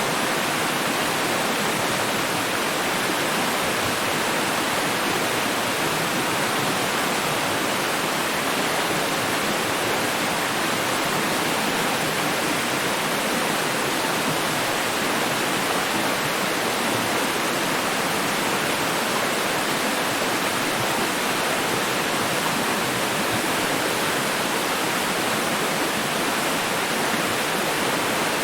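Running water: a steady, even rush that does not change.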